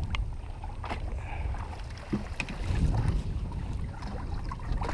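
Steady low wind rumble on the microphone over open water, with a few short sharp clicks and knocks.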